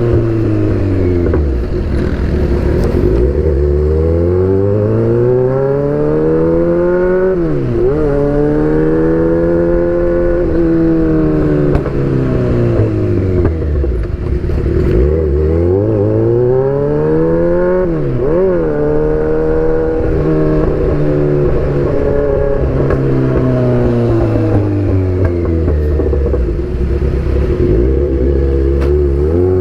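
Kawasaki Z800's inline-four engine through an Austin Racing aftermarket exhaust while riding. The pitch climbs under acceleration with a quick dip at each upshift, then falls away as the throttle rolls off. This happens twice, with a third climb starting near the end.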